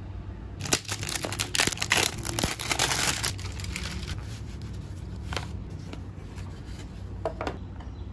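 Plastic shrink-wrap on a packaged self-heating meal box crinkling as it is handled: dense crinkling for about three seconds, then a few scattered crackles.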